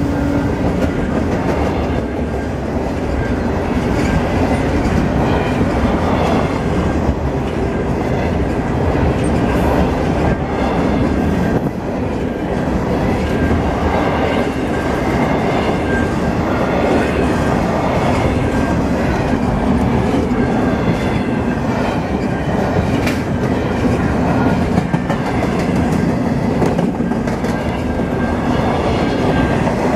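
Long double-stack container train of well cars rolling past: a steady, loud rumble of steel wheels on rail with rhythmic clacking over the rail joints.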